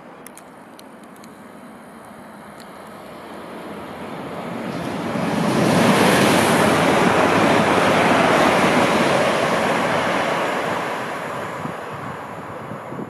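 Class 180 'Adelante' diesel multiple unit passing through the station. A rushing roar of wheels and air builds over a few seconds, peaks about halfway through, then fades away.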